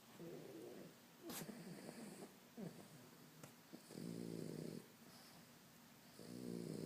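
A pug snoring, about five snores roughly a second and a half apart; the two longest, near the middle and at the end, carry a buzzing drone.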